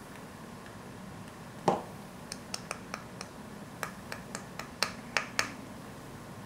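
A dozen or so sharp, irregularly spaced clicks and taps, the loudest about two seconds in: a loaded ink tool being tapped and flicked to spatter ink over an ink drawing.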